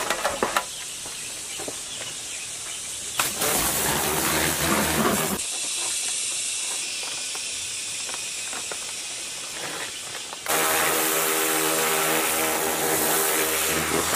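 A few knocks as the bare crankcase of an 1115 diesel engine is set down, then liquid splashing over it. About ten seconds in a pressure washer cuts in suddenly: its pump motor runs steadily under the loud hiss of the water jet blasting the crankcase.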